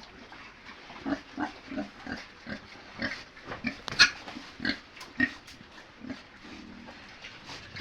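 Pigs grunting in a run of short calls, about two or three a second, with one sharp, louder sound about four seconds in.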